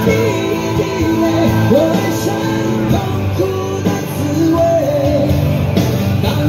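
Pop-rock ballad played loud through a concert PA, a man singing the melody over the band in long held, sliding notes.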